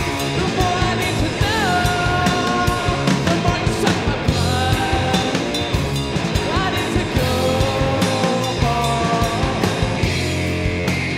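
Live rock band playing at full volume: electric guitar holds long lead notes, bending up into each one, over drum kit and bass.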